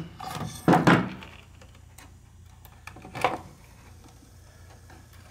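Tape mechanism of a National RX-M50 radio-cassette player running on bench power: a steady low motor hum with scattered light ticks and clicks, a sharper click about three seconds in, and louder clatter in the first second. The repairer puts the mechanism's trouble down to a loose belt.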